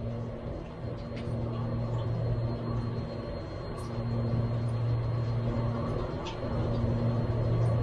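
A steady low mechanical hum, like an engine running at idle, swelling and easing every second or two, with a few faint small clicks.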